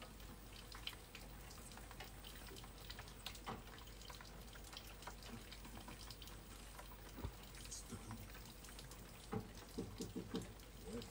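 Faint, irregular dripping and ticking of rainwater from a thunderstorm, scattered drops with no steady rhythm.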